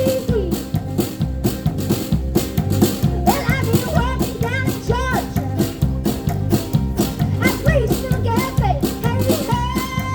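Live country band playing an instrumental passage over a steady, even beat. A lead melody slides and bends between notes twice, and a long held note comes in near the end.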